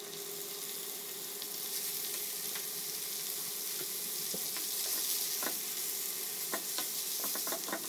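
Beef mince sizzling in hot oil in a nonstick karahi as it goes into the pan and starts to brown, with a metal spatula scraping and tapping the pan as it is stirred; the taps come more often near the end.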